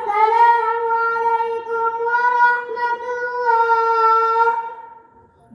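A boy's voice chanting one long, steady high note, held for about four and a half seconds before fading out.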